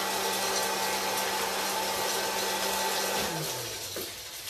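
Hot-air popcorn popper's fan motor running with a steady whine, switched off about three seconds in and winding down.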